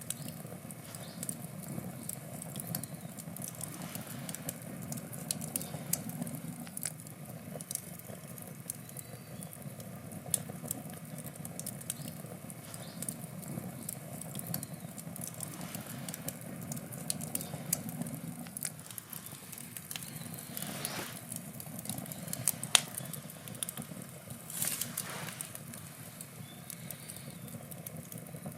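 Wood campfire burning: frequent sharp crackles and pops over a steady low rumble of flame. Two brief rushes of hiss come about two-thirds of the way through, and one pop stands out as the loudest, near the end.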